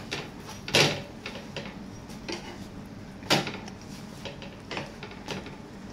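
Metal spatula scraping and knocking against a tawa griddle while two parathas are turned. There are two louder clatters, about a second in and just past three seconds, with lighter clicks between.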